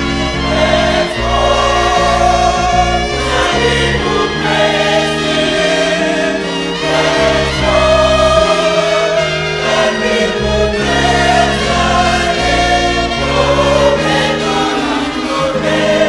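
Gospel choir singing over instrumental backing with a steady bass line: closing theme music.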